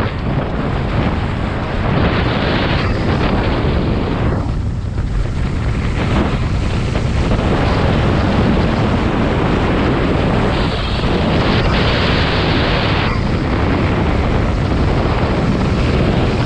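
Rushing airflow buffeting the microphone of a speedflyer in fast flight: a steady low rumble that swells into two stronger gusts, a couple of seconds in and again about two-thirds of the way through.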